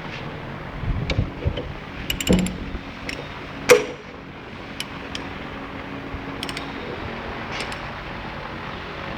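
Metal tool clicks and knocks as a two-jaw bearing puller is set on a motor shaft and tightened with a spanner, a cluster in the first few seconds with the loudest knock about four seconds in, then a few lighter ticks. A steady low hum runs underneath.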